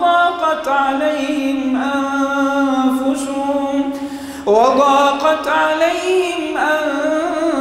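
A male imam reciting the Quran in a slow, melodic chant, drawing out long held notes. A short break comes about halfway through, and then a new, louder phrase begins on a rising pitch.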